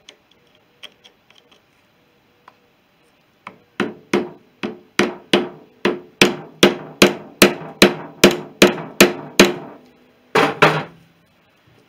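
A ring spanner on a stubborn bolt being struck sharply and repeatedly to shock the bolt loose: a run of about fifteen blows at a little over two a second, a pause, then two more.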